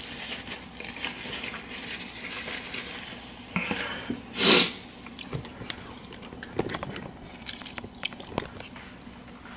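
A person chewing and biting into seasoned chicken close to the microphone, with many small wet mouth clicks and crunches. A short, loud burst of noise comes about halfway through.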